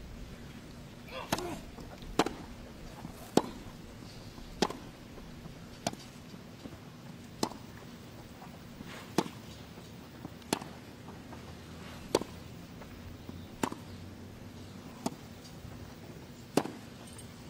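Tennis ball struck back and forth with rackets in a long rally: a sharp pock about every one and a half seconds, about a dozen hits.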